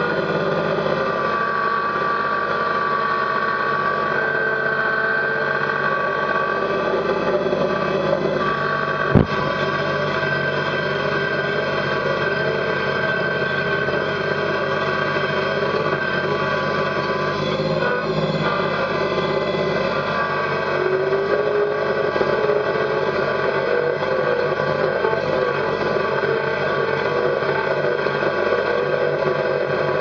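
Kubota BX sub-compact tractor's three-cylinder diesel engine running steadily. A single sharp click about nine seconds in.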